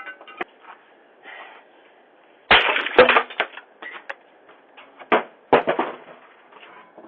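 Four loud bangs in two pairs, the first pair about two and a half seconds in and the second about five seconds in, with faint scraping and rustling between. The sound is thin and tinny, as picked up by a doorbell camera's microphone.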